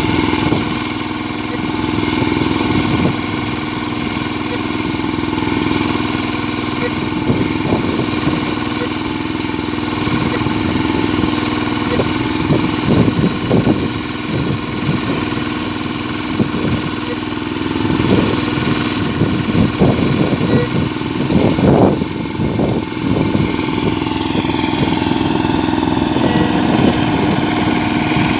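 An engine running steadily at idle, with a series of irregular knocks and clanks in the middle.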